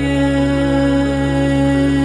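Calm ambient background music: a steady low drone under long held notes.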